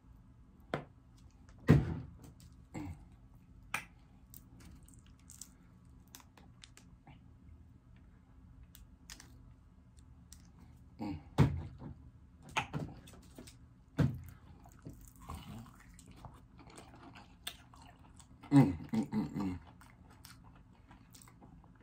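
Scattered clicks, taps and soft wet handling noises as a small sauce bottle is opened and squeezed and sauce is drizzled over fried chicken drumsticks. A louder burst of smacking near the end.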